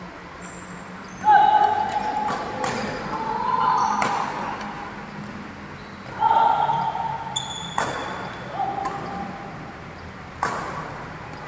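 Badminton rally: sharp racket strikes on the shuttlecock, about five in all, mixed with high-pitched shoe squeaks on the court floor. The loudest squeaks come about a second in and again about six seconds in.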